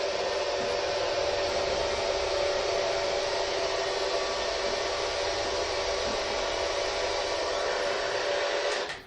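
A steady, even hiss of static from a device that has been switched on, with faint steady tones inside it. It cuts off abruptly near the end.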